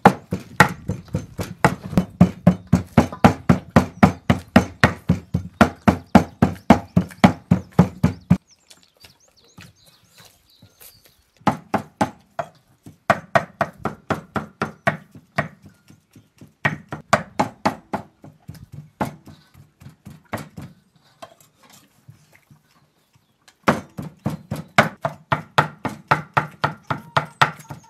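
A cleaver chopping meat into mince on a wooden cutting board: fast, even knocks about five a second, in runs of several seconds broken by short pauses.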